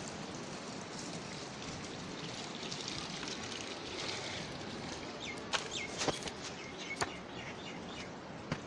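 Steady outdoor background hiss, with a cluster of short, sharp high sounds, several dropping quickly in pitch, a little past the middle and one more near the end.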